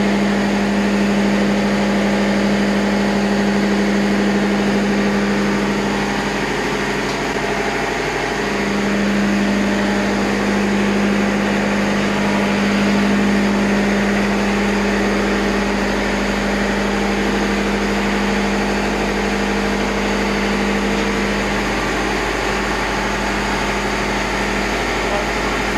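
Diesel engine running steadily in a ship's engine room: a loud, constant low hum with a machinery drone over it.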